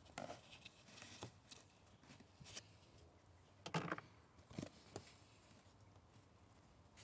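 A few faint clicks and knocks of a car battery's terminal clamp and cable being wiggled and handled on the battery post, the loudest about halfway through.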